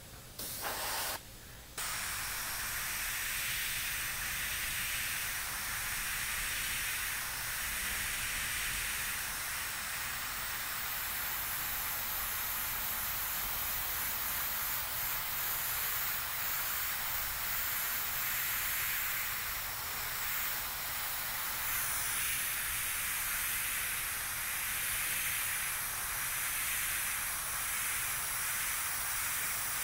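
Iwata Revolution airbrush spraying, compressed air hissing through the nozzle: two short bursts in the first two seconds, then a steady hiss with gentle swells.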